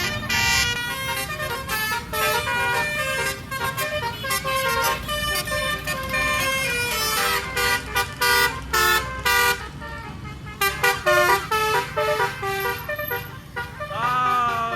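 Basuri musical vehicle horn playing a melody as a string of short, stepped horn notes, with a rising-and-falling sweep near the end.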